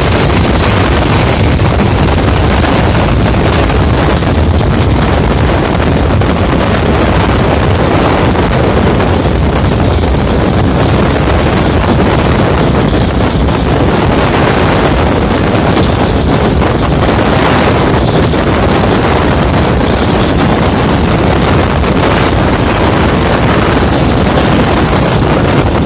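Loud, steady wind buffeting on the microphone, mixed with the roar of a C-17 transport jet's turbofan engines at takeoff. A faint high whine fades out in the first couple of seconds.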